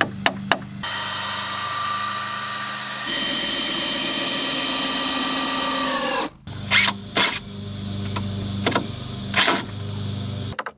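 Yellow cordless drill running under load, driving fasteners into the treehouse's timber frame: a steady motor whine for about five seconds that winds down as the trigger is released. A few sharp knocks follow, then the drill runs again until it stops suddenly at the end.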